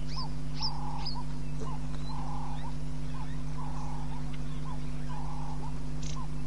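Red-billed hornbill calling: a steady series of short low call notes in pairs, repeating about once a second. Higher chirps from other birds come and go, over a steady low hum.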